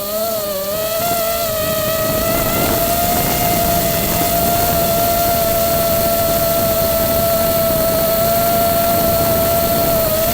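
FPV drone's electric motors and propellers whining, the pitch wavering up and down for the first couple of seconds and then holding steady, with wind rushing over the onboard microphone.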